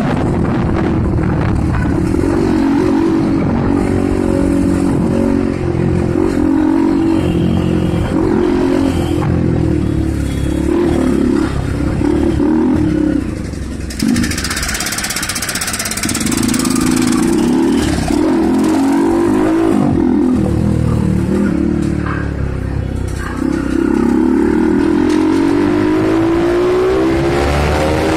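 A vehicle engine running steadily, its pitch rising and falling as it changes speed, with a rushing noise about halfway through.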